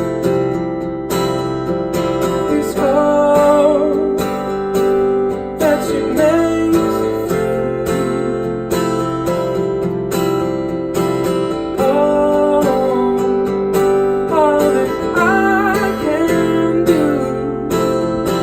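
Acoustic guitar strummed in a steady rhythm, with a higher melody line over it that bends up and down in pitch several times.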